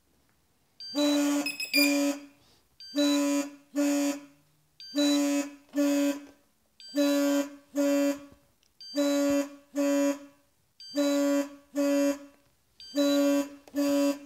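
Electronic warning beeper going off just after the quadcopter and its transmitter are switched on: a low, buzzy double beep repeated about every two seconds, seven pairs in all.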